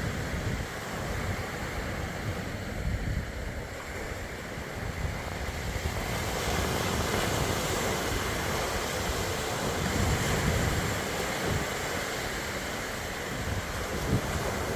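Sea waves rolling in and breaking on the shore, the surf swelling louder about halfway through, with wind buffeting the microphone.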